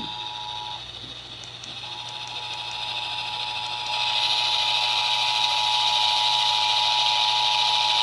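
Emergency Alert System attention signal: the steady 853 Hz and 960 Hz two-tone alarm off a radio broadcast. It drops out for about a second near the start, and a hiss of radio static under it grows louder about halfway through.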